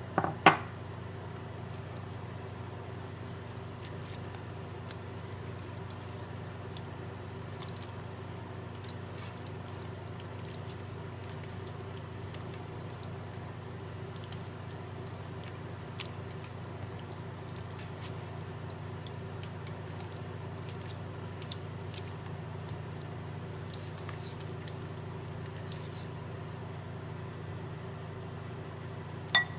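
Soft wet squishing of butternut squash cubes being pressed and stirred into thick chili in an enameled pot, with a sharp clink of the metal spoon against the pot just after the start and another near the end. A steady low hum runs underneath.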